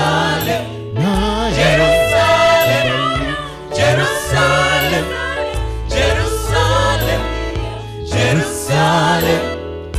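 Mixed choir of men and women singing a gospel song through microphones, in phrases over a steady low bass line.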